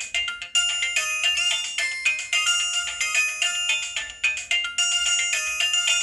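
Samsung SGH-T629 mobile phone ringtone playing: a synthesized polyphonic melody of quick, short pitched notes.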